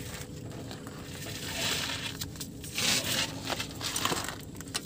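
Rustling and small clicks of hands working on wiring under a van, with a stronger stretch of rustling between about one and a half and three seconds in and sharper clicks near the end.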